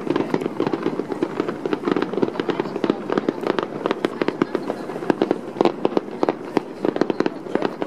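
Fireworks going off in quick succession: a dense, unbroken run of sharp pops and crackles, several a second.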